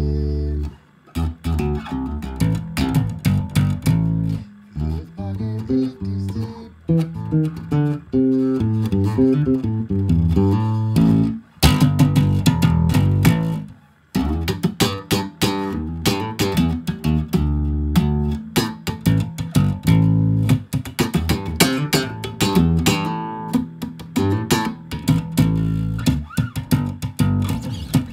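Background music led by plucked guitar over a bass line, with a brief break about fourteen seconds in.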